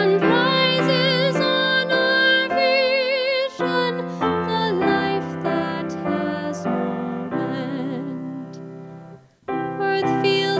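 A woman singing a hymn with piano accompaniment, her voice carrying a clear vibrato. About nine seconds in the music dies away almost to nothing at the end of a verse, then piano and voice start again.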